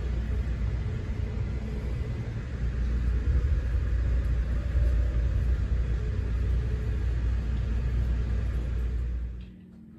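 Steady low rumble of a moving vehicle heard from inside, with road or track noise above it; it cuts off near the end.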